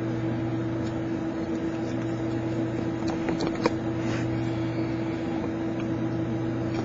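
A steady low mechanical hum, with a few faint light clicks around the middle.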